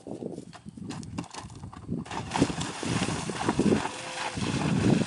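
A ridden horse's hoofbeats on the approach, then, from about two seconds in, loud rhythmic splashing as its hooves churn through the shallow water of a cross-country water jump.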